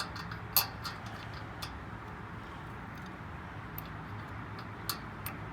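Scattered light metallic clicks, about five in all with the sharpest half a second in, as washers are handled and slid onto a barbecue wheel axle, over a steady low hum.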